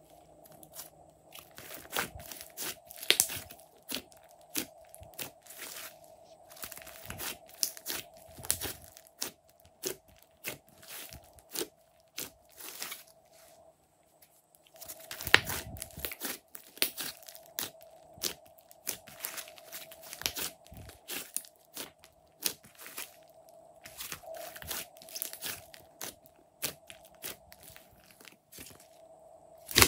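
Glossy slime being stretched, folded and squeezed by hand, giving dense runs of sharp crackling clicks and squishes, with a short pause about halfway through. A faint steady hum runs underneath.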